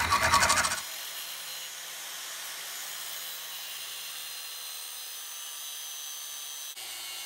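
A brief loud rattle at the start, then an angle grinder's cut-off wheel cutting steadily into an engine exhaust valve clamped in a vise, with an even high-pitched grinding hiss.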